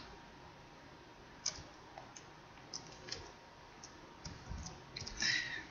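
Faint, scattered clicks at a computer, keys or mouse buttons, a few at a time, bunching into a quick run of clicks near the end.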